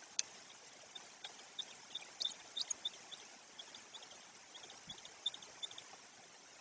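Steady rain hissing through the forest, with many small sharp ticks of falling drops scattered through it.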